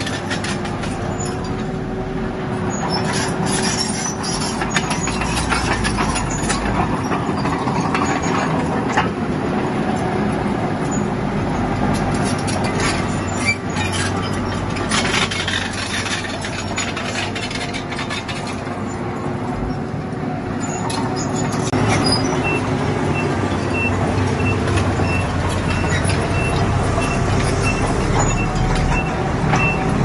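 Bulldozer's diesel engine running under load as it pushes stone, with frequent knocks and clatter from the machine and rock. A faint repeated beep comes in about two-thirds of the way through.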